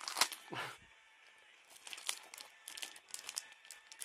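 Foil wrapper of a Pokémon trading card booster pack crinkling as it is gripped and pulled at; the pack is stiff and hard to tear open. The crinkling pauses for about a second, then starts again in irregular bursts.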